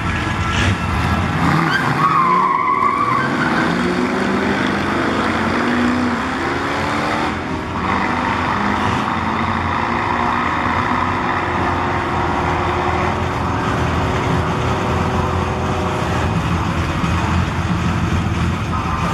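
Two classic cars launching from a drag-strip start line and accelerating hard side by side. Their engines rise in pitch over the first few seconds, dip briefly about seven seconds in, then run on at high revs.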